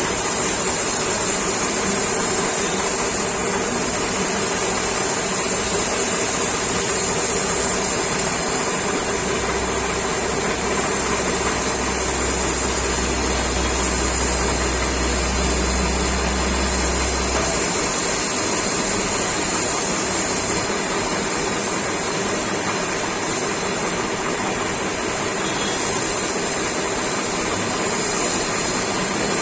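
Glass edge polishing machine running steadily, a continuous grinding hiss as it works the glass edge. A low hum joins about nine seconds in and stops shortly before halfway through the second half.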